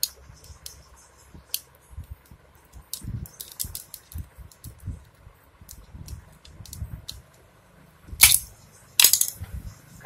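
Small metallic clicks, ticks and scrapes of a screwdriver and pliers working a ground-down pin out of a motorcycle drive chain on a concrete floor, with two loud sharp metal clinks near the end, about a second apart.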